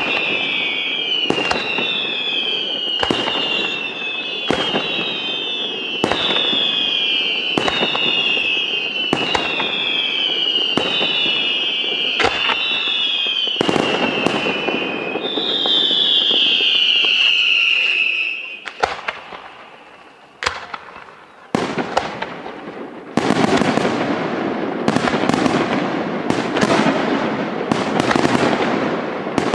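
Aerial fireworks display: shells bursting about every second and a half, each with a falling whistle, and one longer falling whistle around the middle. After a brief lull with a few single bangs, a dense, continuous crackling barrage takes over near the end.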